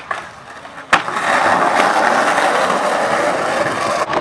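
Skateboard landing with one sharp slap about a second in, then its wheels rolling loudly over rough concrete.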